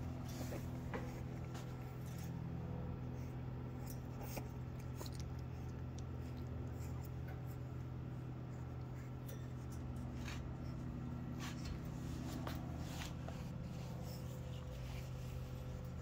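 Steady low hum of a small electric fan running, with scattered light clicks and scratches from a swimmer puppy's claws on the crate's wire floor.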